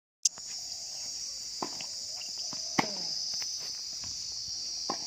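A dense chorus of insects making a steady high-pitched buzz, with a few short sharp sounds on top, the loudest a little before the middle.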